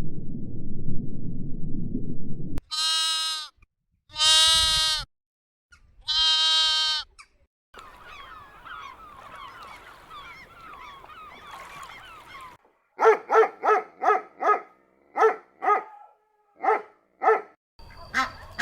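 A run of animal calls: a low rumble for the first couple of seconds, then three long bleats, then a few seconds of many overlapping high chirps, then a quick series of short honks from waterfowl.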